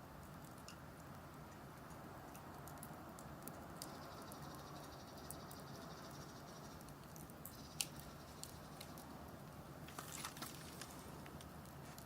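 Wood fire burning in a fire-pit stand: a faint steady hiss with scattered crackles and pops, a sharper pop about eight seconds in and a cluster of crackles near the end.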